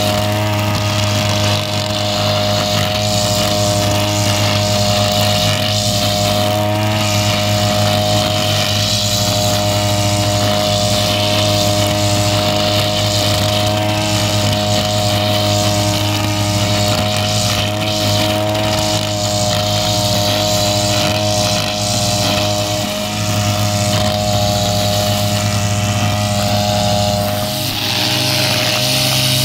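Backpack brush cutter's small petrol engine running steadily at cutting speed as the grass is trimmed. Near the end the engine note changes slightly.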